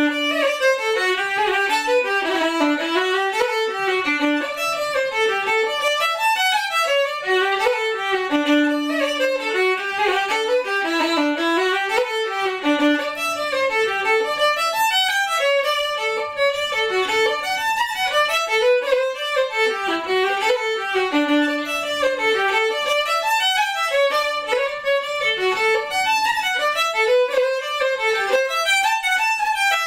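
Solo fiddle playing a brisk Irish traditional dance tune, a quick run of bowed notes with a low open-string note sounded under the melody now and then.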